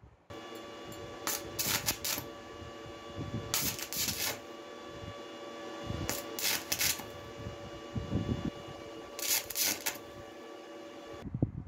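Stick (arc) welder tack-welding a cast iron lamp base: a steady hum throughout, with four short bursts of electrode arc crackle a few seconds apart.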